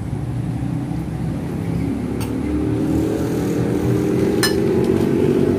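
Dishes and containers clinking twice on a dinner table, over a steady low rumble. A droning hum builds from about halfway and is loudest near the end.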